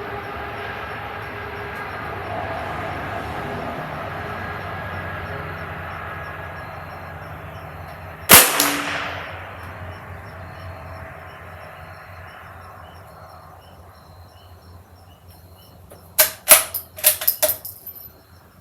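A single shot from a Ruger Precision Rimfire .22 LR rifle about eight seconds in, over a steady background rumble that slowly fades. Near the end comes a quick run of sharp clicks and clacks.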